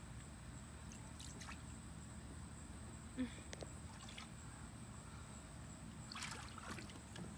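Faint splashing and trickling of water stirred by a toddler's hands in a plastic kiddie pool, with a few louder splashes about six seconds in. A short squeak about three seconds in.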